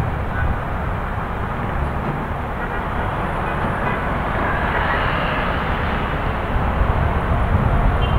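Steady rumbling noise of road traffic and the bucket truck's running engine, with wind buffeting the microphone.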